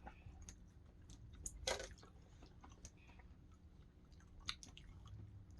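A person chewing a snack, with faint scattered crunches and a louder crunch about a second and a half in.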